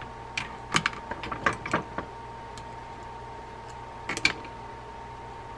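Light clicks and taps from handling the parts of a Shimano Tyrnos 10 II lever drag fishing reel during reassembly: a quick run of about eight in the first two seconds, then two more a little after four seconds.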